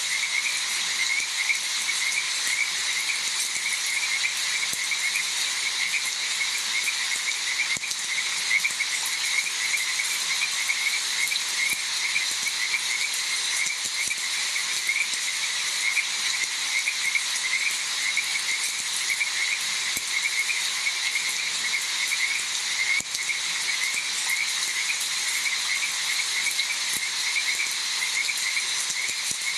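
A chorus of frogs calling without pause in fast repeated pulses over a steady hiss.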